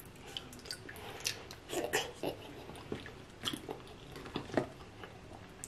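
Close-miked mouth sounds of eating: wet chewing and lip smacking on sauce-coated crab meat, a string of short, irregular smacks and clicks.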